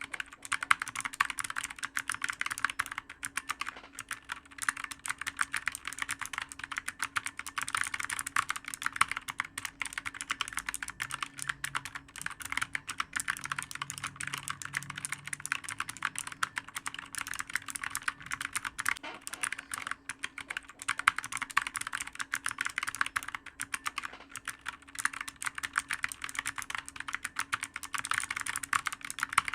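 Continuous typing on a clicky computer keyboard: a dense, unbroken stream of sharp key clicks, many per second, with no pauses.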